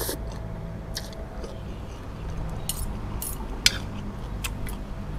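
Metal spoon and fork clinking and scraping against a plate of rice noodles during eating: a few scattered light clicks, with one sharper clink about three and a half seconds in.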